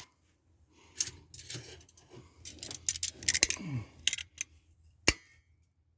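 Metal hand tools clinking and rattling in an irregular run of light knocks, with one sharp click about five seconds in.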